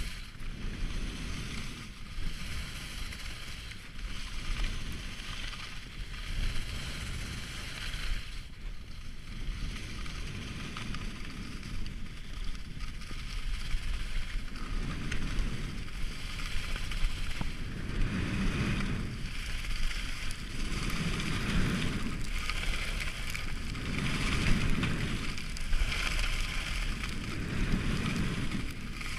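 Wind rushing over the microphone of a ski-mounted or helmet camera while skiing downhill, with skis scraping over packed snow. In the second half the scraping swells and fades every two to three seconds as the skier turns.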